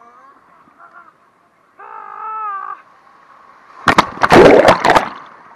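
A man's drawn-out yell lasting about a second, then a loud splash and churning water as he plunges into a swimming pool with the camera, several sharp hits of water on the microphone.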